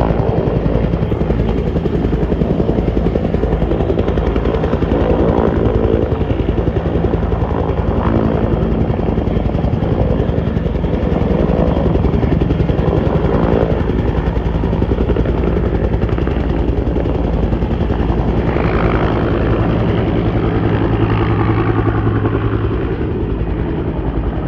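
Bell 205 helicopter hovering low, its two-blade main rotor chopping in a steady, rapid beat over its turbine engine; it eases off slightly near the end as the helicopter moves away.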